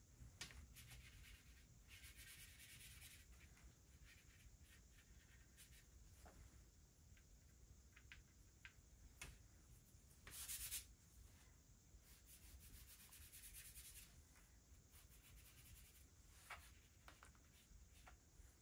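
Faint scratching and rubbing of sketching strokes, short and irregular, with a louder hissing rub about ten seconds in.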